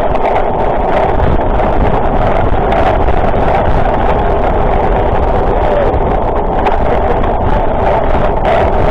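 Wind rushing over the camera microphone and a GT Avalanche mountain bike's tyres running fast on tarmac, a loud steady rush with faint knocks from the road.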